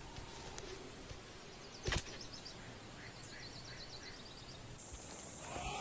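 A dry ana tree seed pod landing on sand with a single thud about two seconds in, over faint open-air ambience. A short run of faint high chirps follows.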